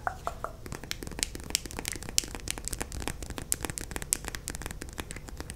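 Fast tapping of long fingernails on a plastic lip gloss tube right at the microphone: a rapid, irregular run of sharp clicks.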